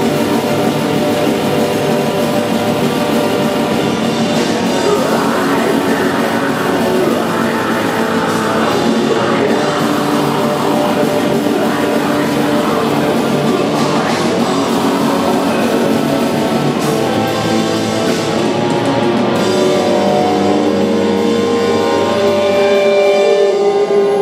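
Live heavy metal band playing loud through a club PA: distorted guitars over a drum kit. Near the end the low end drops away and long held notes ring on.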